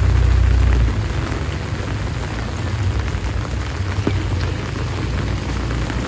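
Heavy rain falling steadily, an even hiss. A low rumble underneath drops away about a second in.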